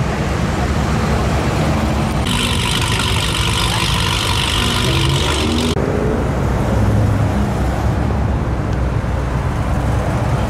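Classic cars and pickups driving slowly past in traffic, their engines and exhausts running low, over road traffic noise. About two seconds in, a steady hiss starts abruptly and cuts off about three seconds later.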